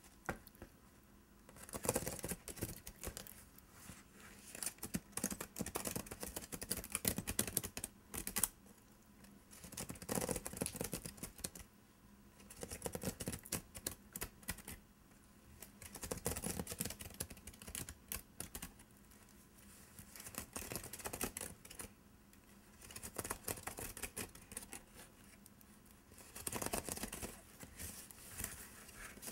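Fingernails scratching along the woven strands of a wicker basket: a dense, crackly run of small clicks, coming in short bouts with brief pauses between.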